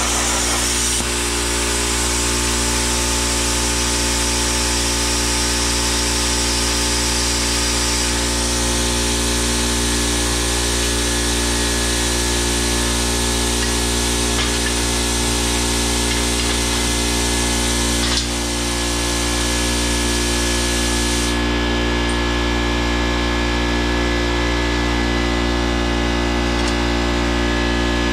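Plasma cutting machinery running steadily, a loud machine hum with many steady tones under a high hiss. A single click comes about 18 seconds in, and the highest part of the hiss drops away about 21 seconds in.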